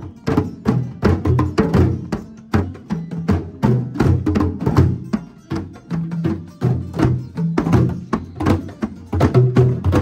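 A group of djembes played together by hand in a quick, steady rhythm. Deep bass strokes are mixed with sharp, high slaps.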